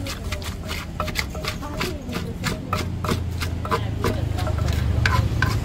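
Wooden pestle knocking in a clay mortar, several quick, uneven knocks a second, as green papaya salad is pounded and mixed.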